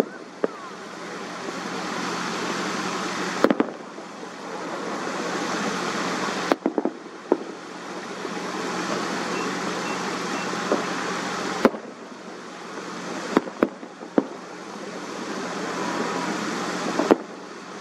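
Road traffic noise swelling and fading as vehicles pass, with sharp bangs from distant fireworks several times, a few seconds apart.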